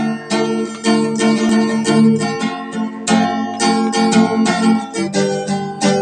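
Acoustic guitar with a capo, strummed in a steady rhythm of ringing chords, about three or four strokes a second.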